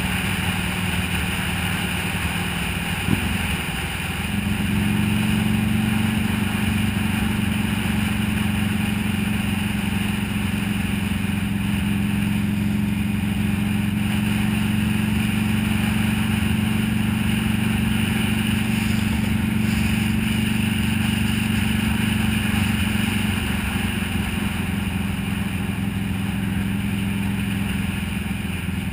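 Buell XB12S's air-cooled V-twin running at steady cruising speed, with a rush of wind and road noise. After a brief dip and click about three seconds in, the engine note steps up slightly and holds, then eases down near the end.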